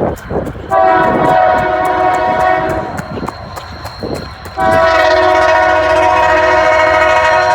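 Locomotive air horn sounding a multi-note chord, whose sound is likened to Chewbacca's growl. There are two blasts: a short one about a second in and a long one starting just past halfway that holds on, over the low rumble of the train.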